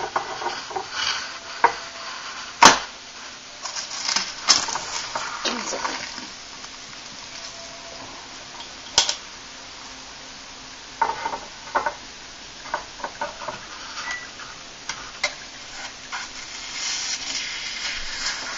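Glass jars and a utensil being handled in kombucha making: irregular clinks and knocks, the sharpest about three seconds in, with two stretches of fizzing hiss.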